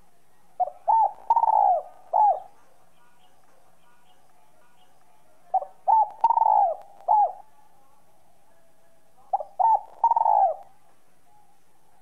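Spotted dove cooing in a clear, whistle-like voice, the type Vietnamese keepers call giọng còi: three coo phrases about four seconds apart, each two short notes followed by a long falling note, the first two ending with one more short note.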